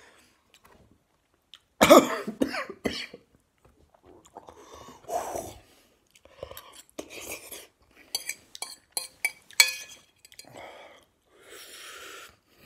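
A man coughing and clearing his throat from the chilli burn of extra-spicy ramen noodles, the loudest cough about two seconds in, followed by further short coughs, chewing and a few sharp clicks of a fork against the bowl.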